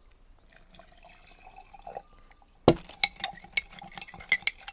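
Water poured from a glass jar into a small glass jar of ferrous sulfate and citric acid powder, then a knock about two and a half seconds in and a metal teaspoon stirring and clinking against the glass several times a second as the homemade iron chelate solution is mixed.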